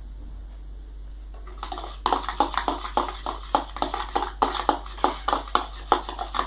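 A spoon stirring slime mixture of glue and powder in a bowl, clinking against the side about four to five times a second. The clinking starts a little over a second in.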